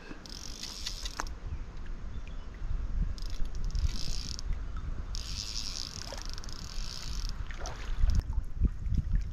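Insects buzzing in three bursts that start and stop abruptly, over steady low wind noise on the microphone. About eight seconds in, a hooked carp splashes at the surface.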